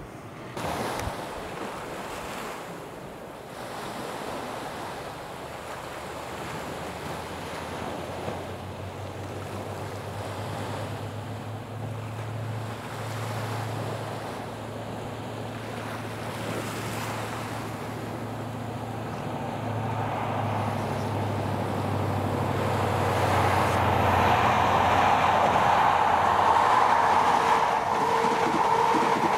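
Sea waves washing against the sea wall as a steady background. From about a quarter of the way in a low steady engine hum comes in, and in the last third a diesel train's approach grows steadily louder until it is the loudest sound.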